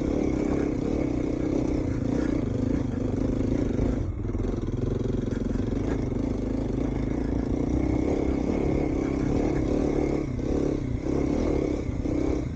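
Kawasaki KLX250's single-cylinder engine running steadily under throttle while riding off-road, easing off briefly about four seconds in and again near eleven seconds.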